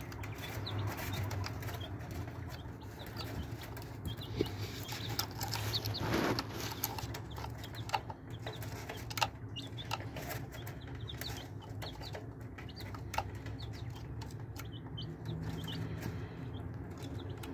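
Young chicks peeping with short, high cheeps while pecking feed from a plastic toy truck's cab, their beaks tapping sharply on the plastic now and then, over a steady low hum.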